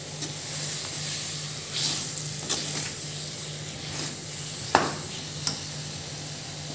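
Tamarind and spices sizzling in a little oil in a black iron wok while a steel spoon stirs them. The spoon gives several sharp scrapes against the pan, the loudest about three-quarters of the way through.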